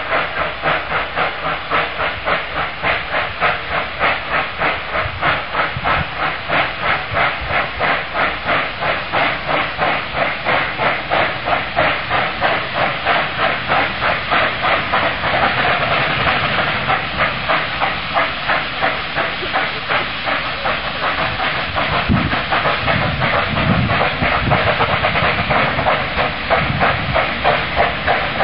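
Narrow-gauge steam locomotive working a train, its exhaust chuffing in a quick, even beat over a steady hiss of steam. It grows louder in the second half as the engine draws near.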